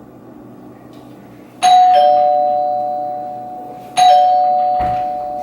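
Two-tone doorbell chime going "ding-dong" twice, about two seconds apart: each time a higher note is struck, then a lower one, both ringing on and slowly fading.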